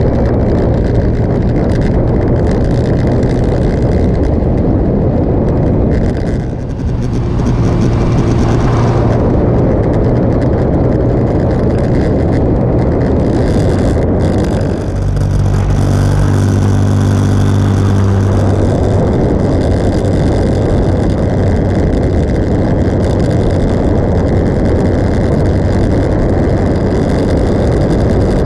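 Motorcycle engine running at road speed under a heavy rush of wind on the microphone. The sound dips briefly twice, about six seconds in and again about fifteen seconds in, and after the second dip the engine's low hum is stronger for a few seconds.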